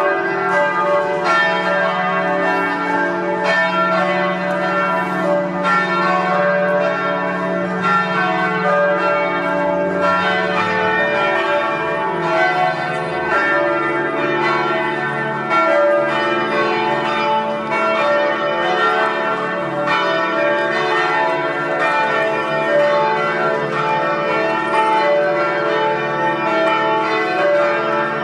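Several church tower bells ringing together in a continuous peal: fresh strikes every second or so overlap the ringing of the ones before, without a break.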